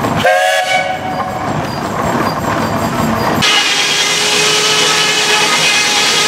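Steam traction engine's whistle sounding briefly, several pitches at once, and fading within about a second. A few seconds in, the sound switches abruptly to a steady hiss of steam.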